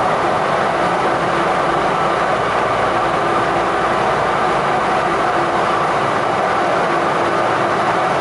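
OrlyVal VAL automated rubber-tyred light-metro train running steadily through a tunnel, heard from inside the front car: an even rolling rumble with a faint steady whine.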